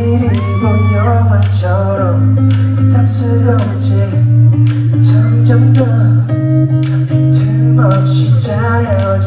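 Live pop concert: a male singer singing into a handheld microphone over loud amplified backing music with sustained deep bass notes, heard from the audience.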